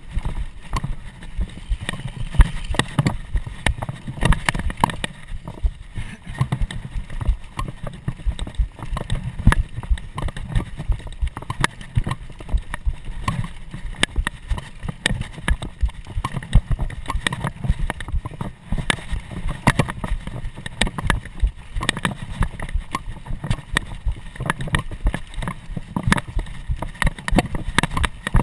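A mountain bike rattling and clattering over rough, dry dirt singletrack at race speed, picked up by a camera strapped to the rider. There is a dense, irregular run of knocks and clicks over a steady low rumble.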